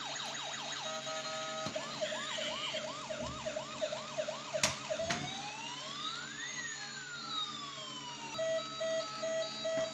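Several electronic toy-vehicle sirens sounding at once. Quick repeated sweeps give way to fast whooping chirps, about three a second, and a single long wail that rises and falls in the middle. From about eight seconds an even beeping comes in, about twice a second, with a sharp click near the middle.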